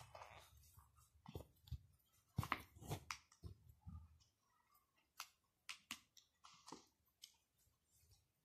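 Faint, irregular clicks and rustles of hand sewing close to the microphone: a needle and thread being handled and pulled through fabric.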